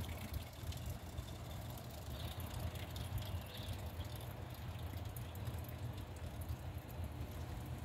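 Quiet outdoor background: a steady low rumble with a few faint ticks.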